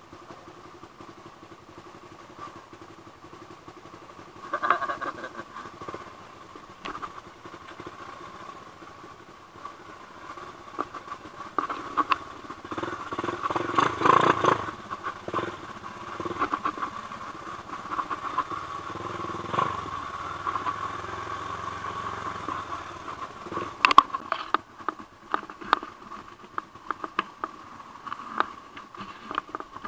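Off-road motorcycle engine running steadily, with scattered knocks and rattles. It gets louder for a couple of seconds around the middle.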